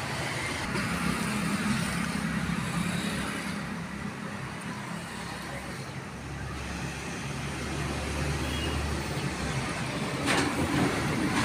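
Motor vehicle traffic noise with engines running, a steady low engine hum for a few seconds past the middle, and a single sharp knock near the end.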